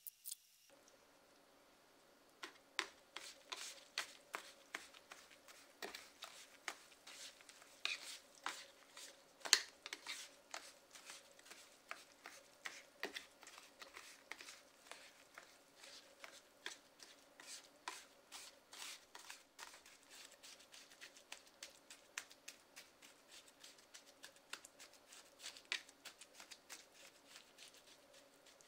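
Plastic spatulas chopping and scraping frozen cola and orange sherbet on the chilled plate of a Hapi Roll ice cream roll maker: a long run of irregular sharp taps and scrapes, several a second.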